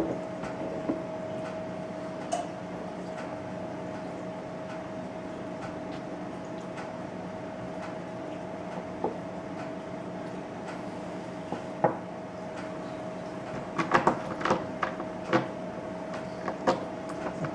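A steady room hum with a few small clicks and knocks scattered through it, several of them bunched together about fourteen to sixteen seconds in.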